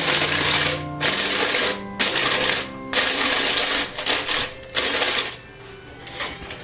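Aluminium foil crinkling in about five loud crackly bursts, roughly one a second, as it is handled, stopping about five seconds in.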